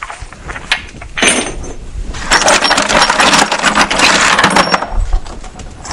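Pieces of flint clattering and clinking against each other as gloved hands rummage through a plastic bucket of rocks, a dense rattle of clicks through the middle.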